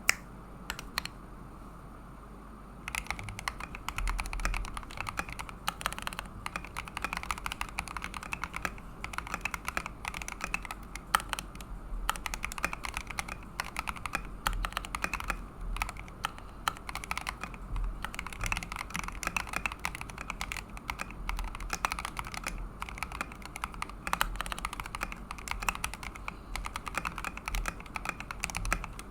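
Typing on a tape-modded Keychron V1 mechanical keyboard with Akko Crystal switches: a couple of single key presses, then fast, continuous key clacks from about three seconds in.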